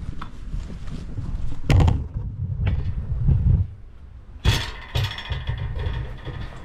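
Heavy laminated timber beam being dragged along a concrete driveway: a rough scraping rumble from the beam end on the ground, with two loud knocks as it bumps, one under two seconds in and one about four and a half seconds in.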